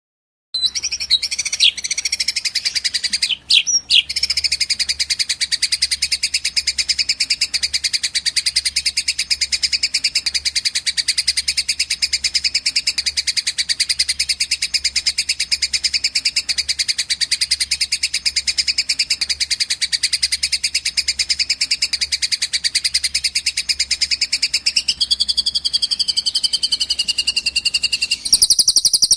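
A long, unbroken, high-pitched rapid trill of songbird song, the 'cililin panjang' style, as played on a bird-tutoring (masteran) recording. It starts about half a second in, and a second, lower trill joins near the end over a faint steady hum.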